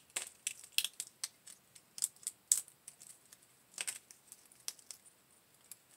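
Brittle shell of a tamarind pod being crushed and cracked open: a run of irregular sharp crackles and clicks.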